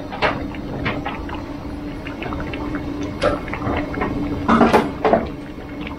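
Liquid pouring and splashing into a large cooking pot of curry, with scattered clinks and knocks and a louder cluster of splashing near the end. A steady low hum runs underneath.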